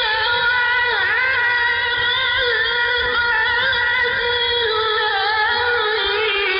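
A male Quran reciter's voice in a long, unbroken melodic line, holding a high note with wavering, bending ornaments. It is an old recording with a dull, muffled top end and a low background rumble.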